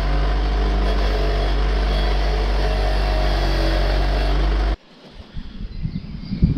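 A loud, steady machine drone with a deep hum, cutting off abruptly about five seconds in, followed by quieter knocks and handling sounds.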